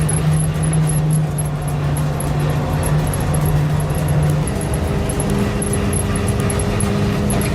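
Caterpillar 666 scraper's diesel engine running as the machine drives along the road, a steady engine note that steps up in pitch about halfway through.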